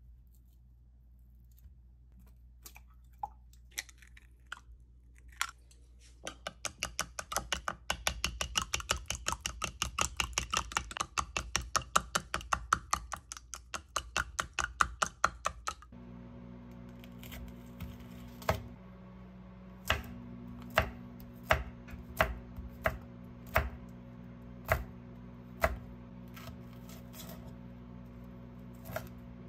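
Chopsticks beating eggs in a glass measuring cup, a fast run of clicks against the glass lasting about ten seconds. Then a kitchen knife chopping green chili peppers on a wooden cutting board, single knocks about once a second over a steady low hum.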